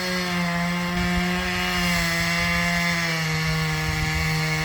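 Chainsaw running at speed as it cuts a felling gash into the trunk of a large tree, a steady high whine whose pitch drops slightly about three seconds in.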